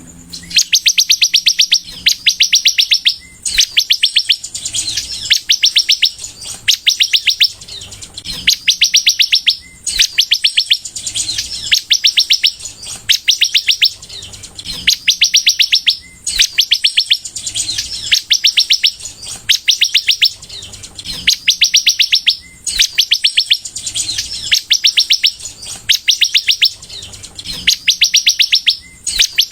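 A sunbird (kolibri) singing in full, continuous song: rapid high-pitched trills about a second long, repeated one after another with short pauses between them.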